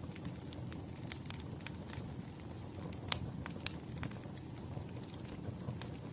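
Wood fire burning, crackling with irregular sharp pops and snaps over a low, steady rumble of flame.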